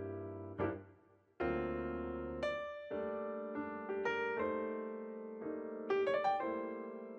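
Background piano music: notes struck one after another, each ringing and fading, over held chords.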